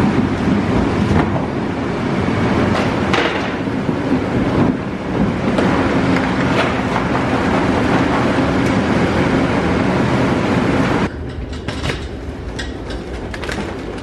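Loud, steady whir of a walk-in cooler's refrigeration fans, with produce spilling out of cardboard boxes into plastic crates. About eleven seconds in the whir drops away, and a hand pallet jack rattles over the concrete floor.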